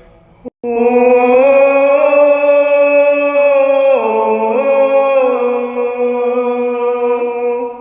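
Music with a voice singing long held notes that start suddenly about half a second in, with a couple of small pitch steps near the middle.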